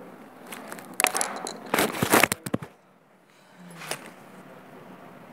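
Loud rustling and crackling handling noise with sharp crackles, from about one to nearly three seconds in, then a short knock near four seconds.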